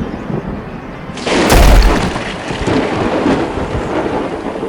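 Steady rain with a thunderclap breaking in about a second in, a sharp crack and deep rumble that carries on under the rain.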